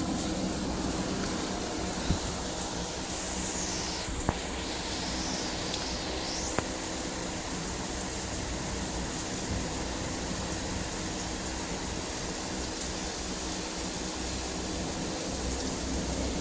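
Steady rushing noise of a windy storm outdoors, with a few faint taps in the first several seconds.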